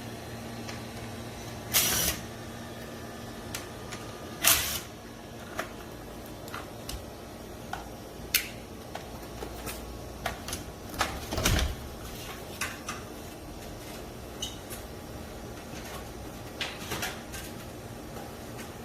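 Irregular clicks and knocks of parts being handled and taken apart on a Carrier four-way ceiling cassette air conditioner, the loudest about 2, 4.5 and 11.5 seconds in, over a steady low hum.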